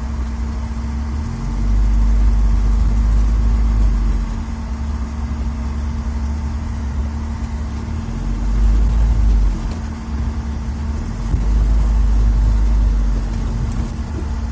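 UAZ Farmer truck's engine heard from inside the cab, running at low speed with a steady low rumble that swells three times as it takes load.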